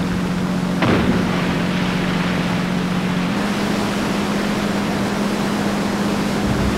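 Boat engine running with a steady hum over the wash of surf and wind; the hum steps slightly higher a little after three seconds. A single sharp thud about a second in.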